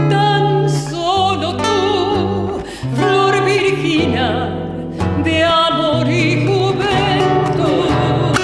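A woman singing a slow melody with a wide vibrato, accompanied by an acoustic guitar.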